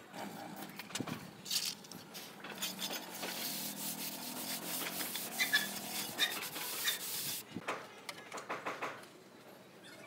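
A trowel scraping wet cement mortar along a wooden guide strip on a rendered wall, then a steady rubbing hiss for a few seconds as a hand float is worked over the mortar. This is followed near the end by a run of light taps.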